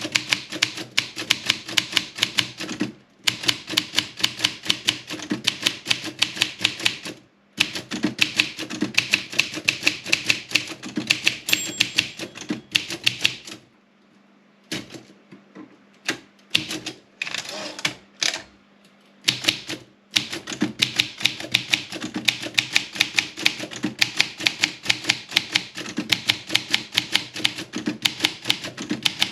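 Olympia SM 7 manual portable typewriter being typed on: fast runs of sharp key strikes, several a second, broken by brief pauses, with a quieter stretch of only scattered sounds about midway.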